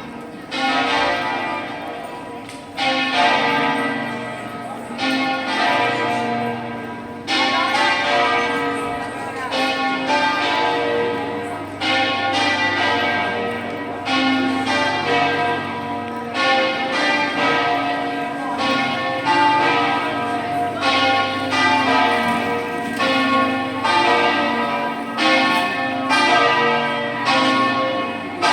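Church bells ringing, each stroke ringing on and overlapping the next. The strokes come about every two seconds at first, then closer together, about one a second.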